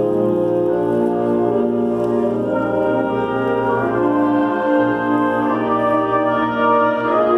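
High school concert band playing: brass and woodwinds, saxophones and low brass among them, holding full sustained chords that move from one to the next every second or so.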